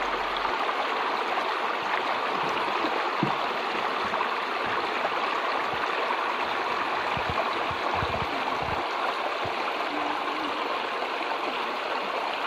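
A shallow, rocky stream babbling and rushing over stones and pebbles: a steady, even splash of moving water.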